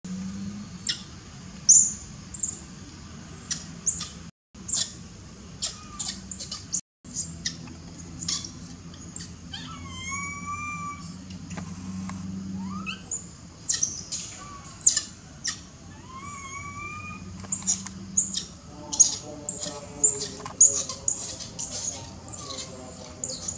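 Young long-tailed macaques calling: many short, sharp, high squeaks, a few rising-and-falling whistled coo calls around the middle, and a lower, wavering cry from about two-thirds of the way in.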